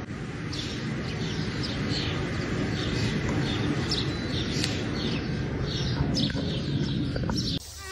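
Short, high chirps from a small animal, repeating two or three times a second over a steady low rushing noise. Both stop abruptly near the end.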